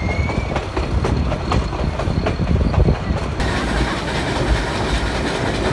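Ooty toy train running, its wheels clacking over the rail joints with a heavy rumble. A louder hiss joins about three and a half seconds in.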